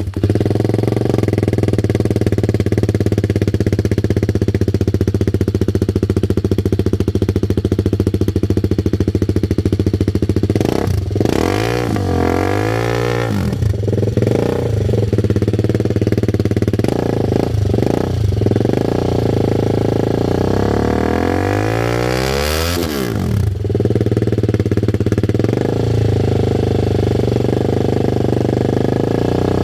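TVS Apache RR310's single-cylinder engine idling loudly through an aftermarket Akrapovic-style exhaust. It is revved up and down a little over a third of the way in, blipped a few times, then revved in a longer climb that peaks about three-quarters through and drops back to idle.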